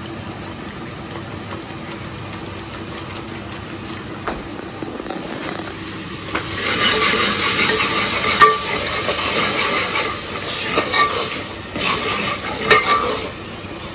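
A few faint clinks of a wire whisk in a steel bowl of gram-flour batter. Then, from about six seconds in, onion-tomato masala sizzles loudly in an aluminium pot as a steel ladle stirs it, clinking and scraping against the pot.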